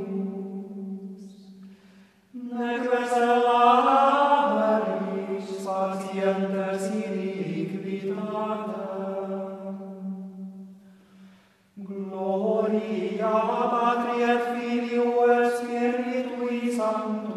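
Background vocal music: a slow chant sung in long held notes. One phrase fades out near the start, a new phrase begins about two and a half seconds in and fades away, and another begins about twelve seconds in.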